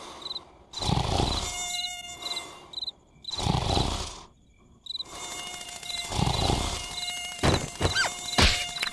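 Cartoon mosquito buzzing with a thin steady whine over a background of cricket chirps. Slow swells of snoring come from a sleeping larva about every two and a half seconds, and a few sharp knocks sound near the end.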